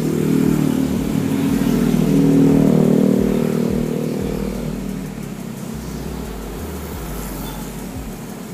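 Motorcycle engine running, getting louder to a peak a couple of seconds in and then easing off to a steadier, quieter hum.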